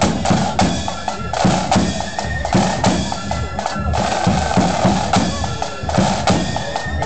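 Marching flute band playing on the move: a loud, steady beat of side drums and bass drum with the flutes' tune above.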